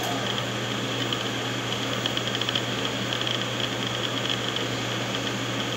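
Steady low hum with an even background hiss; no music is played.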